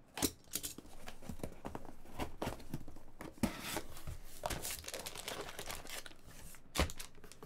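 Packaging being torn open and crumpled by hand: irregular crackling and rustling with a few sharper snaps, typical of a wrapper being ripped and scrunched up.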